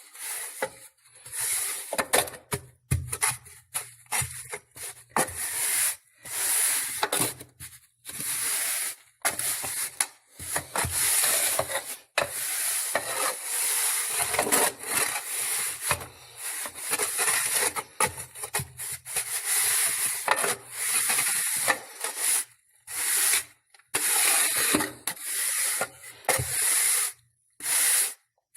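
Irregular rough scraping strokes with short pauses between them, as a bed of coarse salt is spread and levelled with a hand tool.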